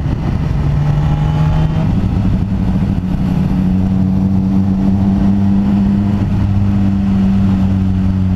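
BMW sport motorcycle's engine running steadily on the road, recorded on board with wind on the microphone; its pitch steps up about two seconds in and then holds.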